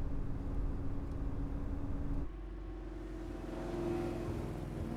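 V8 engine of a Chevrolet Chevelle muscle car running steadily. After an abrupt change a little over two seconds in, it revs up, rising in pitch as it accelerates.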